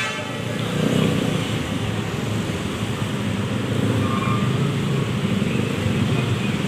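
Intercity bus engine running with a steady low rumble as the bus moves off, amid road traffic noise.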